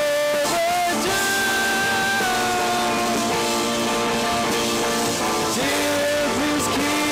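Live rock band playing an instrumental stretch of a song: electric guitars, bass and drums, with long held lead notes that bend in pitch.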